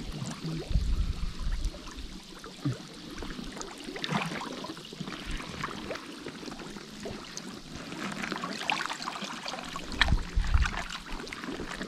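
River water splashing and trickling, with many small irregular splashes and a few low thuds near the start and near the end.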